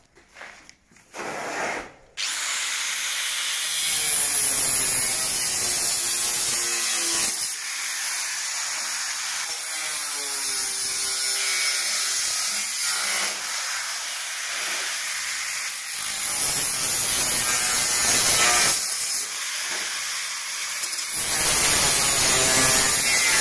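Angle grinder with a thin cutting disc slicing through a steel sill repair panel, starting about two seconds in and running loudly on, the load easing and rising several times as the disc bites into the sheet steel.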